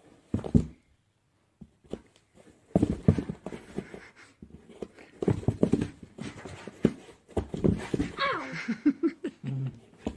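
A pet animal's noises: a run of irregular short knocks and scuffles, with a short animal cry that bends in pitch near the end.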